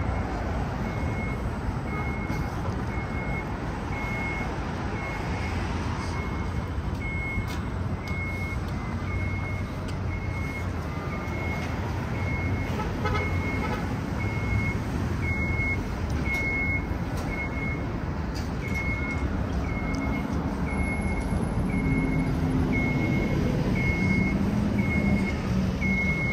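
Street traffic rumble with a short, high electronic beep repeating about once a second. In the last few seconds a low engine hum grows louder.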